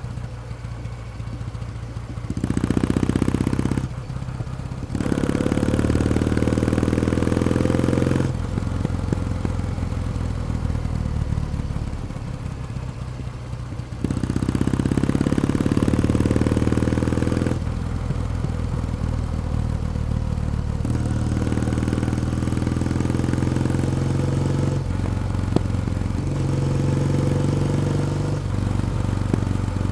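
Kawasaki W1 Special's vertical-twin engine and exhaust on the move. It pulls twice with a rising pitch, eases off in between, then runs at a steadier pace with small changes of throttle.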